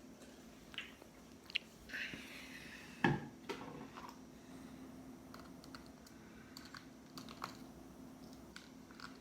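Small clicks, taps and scrapes of a small screwdriver on a Kindle's plastic case and screws during disassembly, with a sharper knock about three seconds in, over a faint steady hum.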